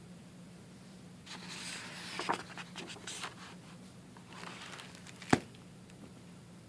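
Rustling, scraping handling noises in two stretches, then one sharp click about five seconds in, over a low steady room hum.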